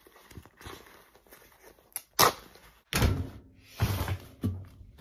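Camera being handled and set in place: several sharp knocks and thumps with rustling between them, loudest from about two seconds in.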